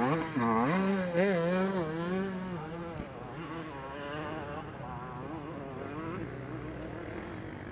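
Motocross bike engine revving up and down as it pulls away up the track. About three seconds in it falls to a quieter, steadier drone as it moves into the distance.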